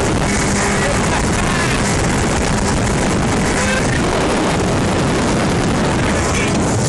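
Motorboat running fast on open sea: a steady rush of engine, wind and water with a low, even engine hum under it.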